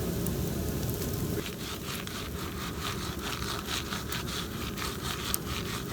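Jiffy Pop foil pan shaken back and forth on a stick over a campfire, unpopped kernels rattling and scraping in quick repeated strokes from about a second and a half in.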